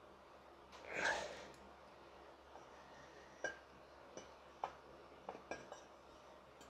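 A sharp, breathy exhale about a second in, then a series of light metallic clinks, about six spread over the second half, as a rotary engine's center iron is lowered down the eccentric shaft onto the housing's dowels.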